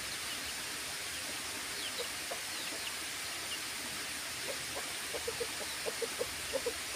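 Chickens clucking in short low notes, sparse at first and coming in a quicker run from about four and a half seconds in, over a steady hiss, with a few faint high chirps.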